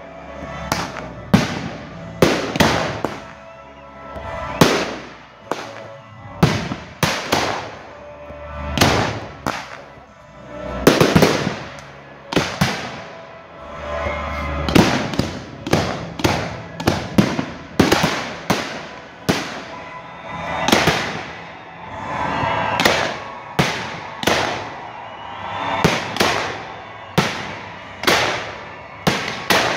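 Aerial firework shells bursting one after another, sharp bangs about every second with echoing tails.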